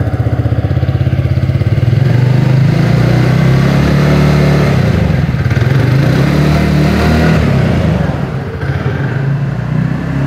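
A TVS Ntorq 125 XT scooter's 124.8 cc three-valve engine running, heard close at the exhaust, its pitch and level rising and falling a little as the throttle changes. The exhaust note is refined and not very bassy.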